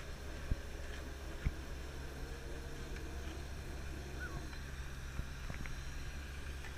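Heavy truck engine running steadily, a low rumble under the truck-mounted asphalt spreader, with a couple of short sharp clicks about half a second and a second and a half in.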